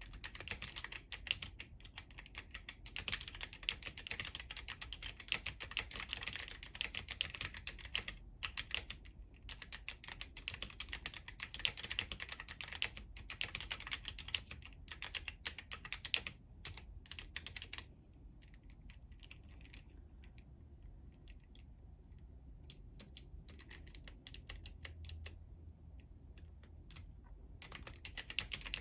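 Typing on a Womier K68 mechanical keyboard with clicky Kailh Box White switches and crystal keycaps: fast, continuous key clicks for the first half, thinning to slower, scattered keystrokes after about 18 seconds, then picking up again near the end.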